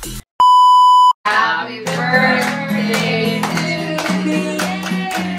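Music cuts off and a loud, steady electronic beep sounds for under a second. A song with singing over it then begins.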